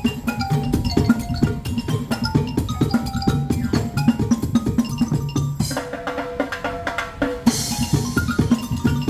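Live percussion music: drums struck in quick, dense patterns under short mallet-struck pitched notes, played on instruments built from recycled materials. About six seconds in the drumming thins out while longer notes ring, then a bright hissing wash comes in.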